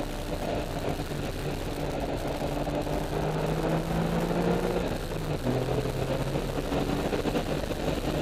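A Porsche 996's flat-six engine pulling at speed on a track, heard from inside the cabin over steady road and tyre noise. The engine note climbs slightly, then steps down to a lower pitch about five seconds in and holds there.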